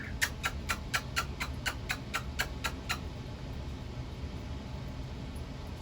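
Pet talking bird making a fast run of short, sharp clicks, about four or five a second, which stops about three seconds in.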